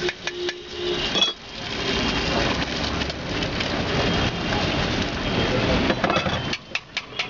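Egg sizzling in oil on a tawa, with a metal spatula clinking and scraping against the pan: a cluster of sharp clinks near the start and again near the end, and a steady sizzle between.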